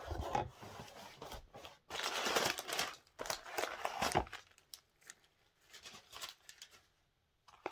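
Packaging being handled and unwrapped: crinkling and rustling in three bursts over about four seconds, then a few light clicks and taps.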